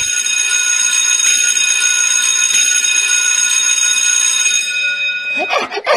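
School bell ringing steadily, then cutting off near the end.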